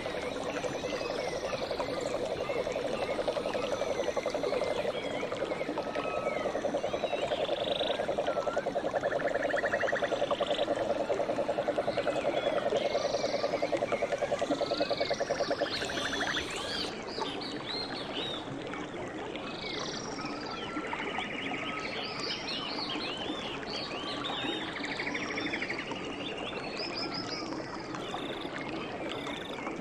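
Frog chorus: a low, rapid trill runs through the first half and cuts off suddenly about sixteen seconds in, over many short, higher chirping calls throughout.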